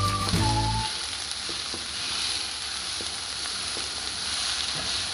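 Diced red onion sizzling in hot oil in a wok, stirred with a wooden spatula that lightly scrapes the pan. A few descending notes of background music end about a second in, leaving the steady sizzle.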